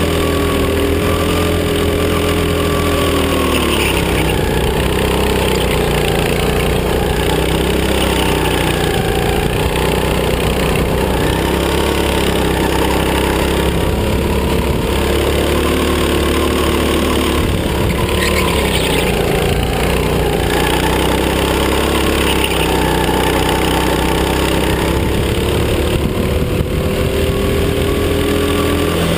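Racing kart engine heard from the driver's seat, its pitch dropping and climbing again several times as the kart slows for corners and accelerates out of them.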